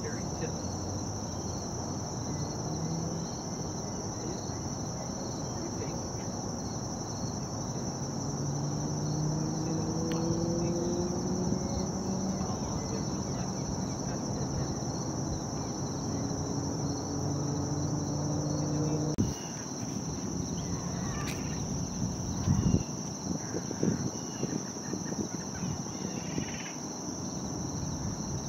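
Steady, high-pitched drone of an insect chorus over a low background rumble. Faint low hums rise slowly in pitch through the middle, and a few sharp knocks come in the last third.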